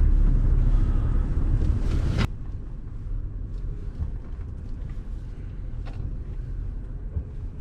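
Honda Ridgeline's engine and road noise heard from inside the cab while driving: a low rumble that drops abruptly to a much quieter rumble about two seconds in, with a few faint ticks.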